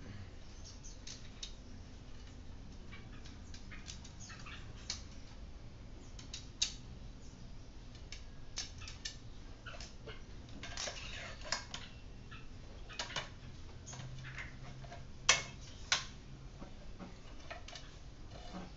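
Ticking of a bicycle's loud-clicking "jangkrik" freehub as its pawls ratchet while the hub is turned by hand. Scattered sharper metal clicks and clinks come with it, the loudest two close together in the second half.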